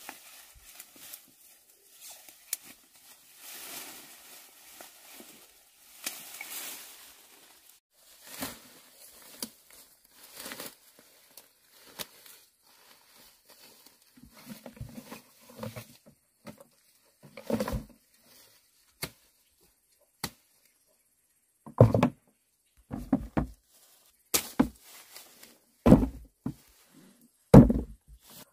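A series of irregular dull thuds. Soft scraping noise and scattered light knocks come first, then about half a dozen heavy thuds in the second half, spaced a second or two apart.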